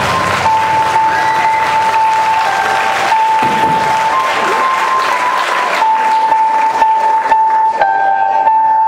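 Audience applauding over backing music; the music's high melody holds long notes that step up and down in pitch.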